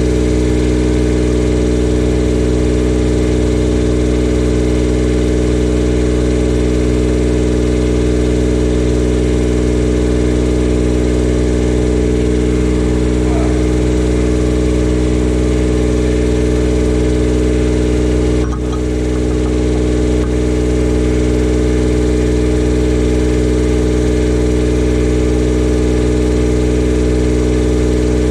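Miller Bobcat 250 diesel engine-driven welder running steadily, with a brief dip in level about eighteen seconds in.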